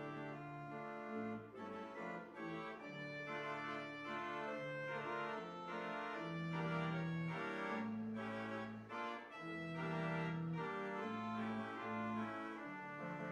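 Organ playing a pre-service prelude: sustained chords over a bass line that moves from note to note.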